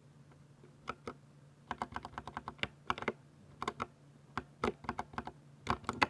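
Typing on a Ducky 60% mechanical keyboard with silver switches: a couple of single keystrokes about a second in, then quick runs of key presses with short pauses between them.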